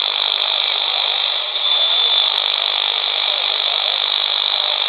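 AOR AR8000 handheld receiver tuned to upper sideband on the 15 m ham band, its speaker giving steady shortwave static with no clear voice. A brief high whistle sounds about two seconds in.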